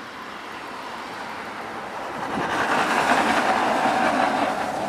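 Passing traffic: an articulated truck with a curtain-sided trailer rolls by while a tram approaches on the median tracks. The rumble swells from about two seconds in and is loudest near the end.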